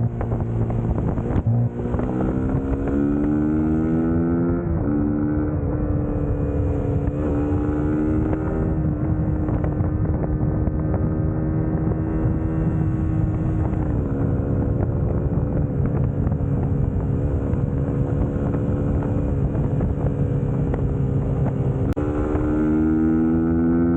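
Suzuki GSX-S150's single-cylinder four-stroke engine under way, with wind on the microphone. The revs climb and then drop sharply at a gear change a few seconds in, and hold a steady pitch at cruising speed. Near the end the revs drop and climb again.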